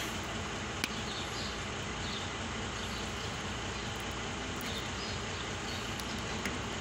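Two short sharp clicks, one about a second in and one near the end, from pliers snipping and stripping a copper wire, over a steady background hiss.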